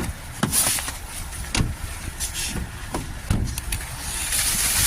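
Snow being cleared off a car: a few dull knocks and brushing swishes over a steady low rumble.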